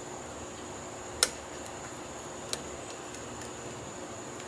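A few small sharp metallic clicks from a hook pick working the pin stack of a Yale euro cylinder under light tension, the loudest about a second in and a softer one a little past halfway.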